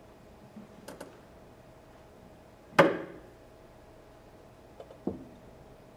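A few isolated knocks in a reverberant hall: light clicks about a second in, a loud knock with a short echoing tail near the middle, and a softer thud near the end, over a faint steady hum.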